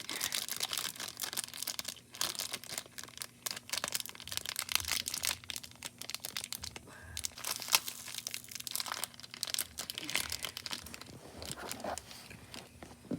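Slime being kneaded and stretched by hand to work in added pieces, giving a dense, irregular run of small sticky clicks and pops.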